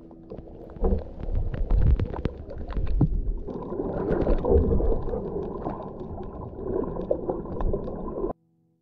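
Muffled underwater sound picked up by a camera inside its waterproof housing: low rumbling water noise with many small clicks. The noise changes about three and a half seconds in and cuts off suddenly near the end.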